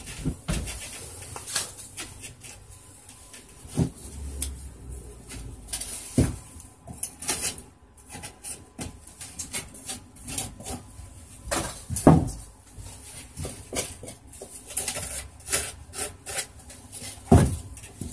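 XPS foam pieces being handled and trimmed by hand with a knife: irregular knocks and scraping, with two louder knocks, one about twelve seconds in and one near the end.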